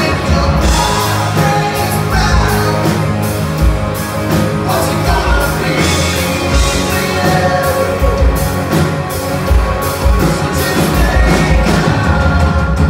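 A rock band playing live: electric guitars, bass guitar and a drum kit, with the kick drum thumping steadily underneath.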